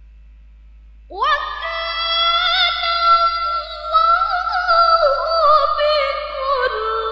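A woman's Quran recitation (tilawah) sung into a microphone, coming in about a second in. It is one high, clear voice that glides up at the start, then holds long notes with quick wavering ornaments.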